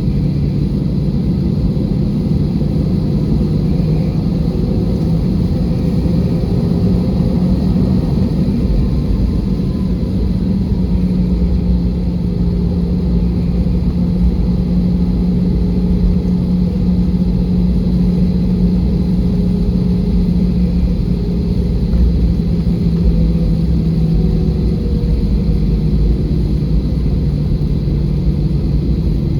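Airbus A320 cabin noise heard from inside the cabin: a steady, loud low rumble from the jet engines and airflow, with a low drone that wavers slightly in pitch.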